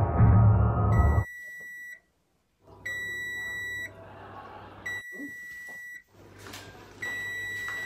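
Electric cooker's oven timer beeping: a steady high beep about a second long, repeated four times at roughly two-second intervals. Music cuts off just before the first beep.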